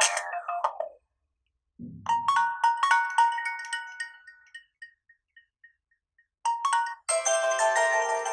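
Ringtones of an HTC Desire C phone playing one after another: an electronic tune stops about a second in, then after a short low thump a bell-like melody rings out, its last notes echoing and fading away. Near the end a fuller chiming ringtone begins.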